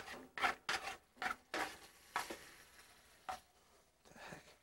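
Alfredo sauce being stirred in a pan on the stove, in a string of short, irregular strokes that grow fainter toward the end.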